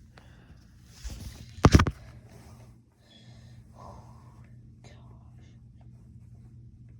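A brief, loud rustle or rub right against the phone's microphone, about a second and a half in, then faint soft whispery sounds and small rustles.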